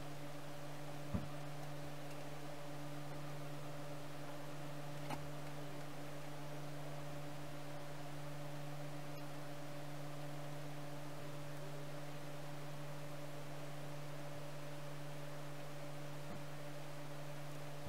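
Steady low electrical hum, with a few faint short clicks about a second in, around five seconds in and near the end.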